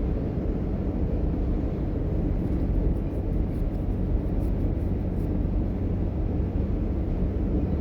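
Class 425 electric multiple unit heard from inside the passenger car while running at speed between stations: a steady, loud low rumble of wheels on rail and running gear, with a few faint high ticks in the middle.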